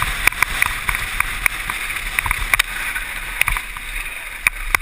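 Mountain bike clattering and rattling over rough trail at speed, with a quick, irregular run of sharp clicks and knocks over a steady rushing noise and a low rumble.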